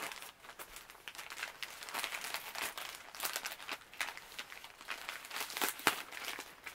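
Foil and plastic sheet face-mask sachets crinkling and rustling in irregular crisp crackles as a hand shuffles through the pile.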